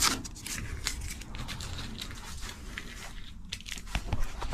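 Irregular crinkling, scraping and clicking of something being handled at close range.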